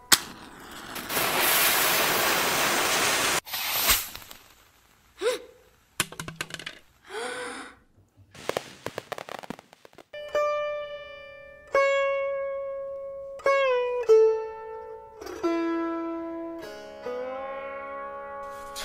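A homemade rocket ignites with a click and hisses loudly for about three seconds, then cuts off suddenly, followed by a bang and a few scattered short sounds as it comes down. From about ten seconds in, a plucked string instrument plays slow notes with sliding pitch.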